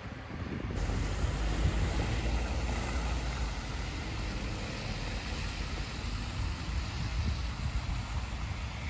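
Street traffic on a snow-covered road: a steady hiss of passing vehicles over a low rumble, with wind buffeting the microphone.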